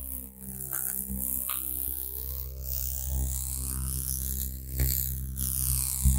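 Microwave oven running: a steady electrical hum, with a couple of short knocks near the end.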